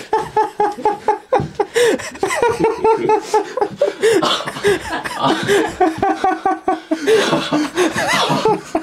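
Two men laughing hard in quick repeated 'ha-ha' bursts, with breathier laughter near the end: nervous laughter after one has just been given a fright.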